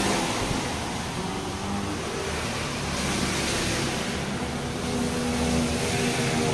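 A motor vehicle's engine running with a steady hum and hiss, its pitch shifting slightly.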